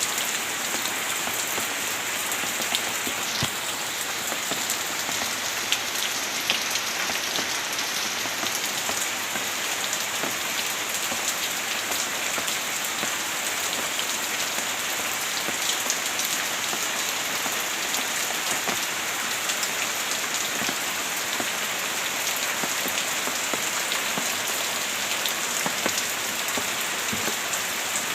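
Heavy rain falling steadily, with a dense hiss and many individual drops pattering on a surface.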